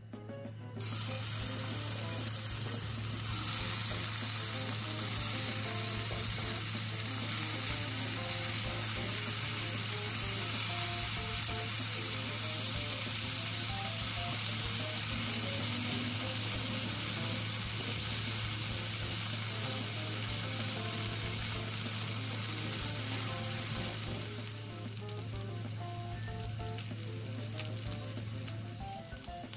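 Bacon slices sizzling as they fry in a nonstick frying pan, a dense crackling hiss that starts about a second in and eases somewhat near the end, over a steady low hum.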